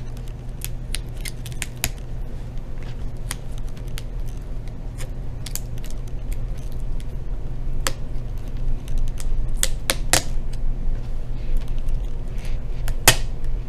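Fingers and a small flat pry tool working at the tape over a laptop LCD panel's ribbon-cable connector: irregular small clicks and ticks, with a few sharper clicks, the loudest near the end, over a steady low hum.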